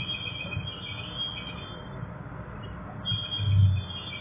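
MTR M-train's brakes squealing in high, wavering tones as the train slows into a station platform, in two stretches over a steady low rumble. A dull thump comes about three and a half seconds in.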